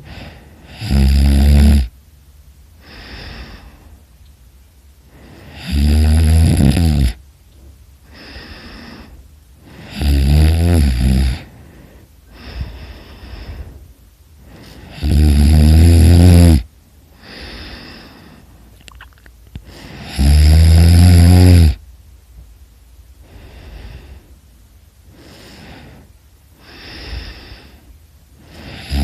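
A person snoring: a loud, rasping snore about every five seconds, five in all, each lasting a second or more, with softer breaths in between.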